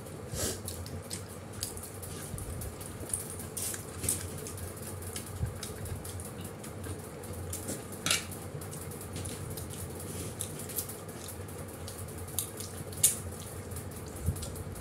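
Scattered light clicks and taps of fingers and food against plates and a small serving bowl as people eat by hand, the sharpest near the end, over a steady low background hiss.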